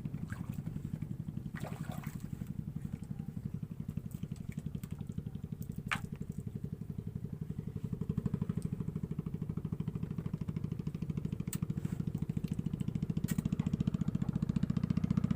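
A small engine running steadily with a fast, even putter, getting somewhat louder over the second half, with a few sharp clicks over it.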